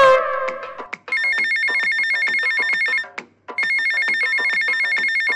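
A phone ringtone rings twice, each ring a steady, slightly warbling electronic tone about two seconds long with a short pause between: an incoming call. Before it, a loud falling tone fades out over the first second.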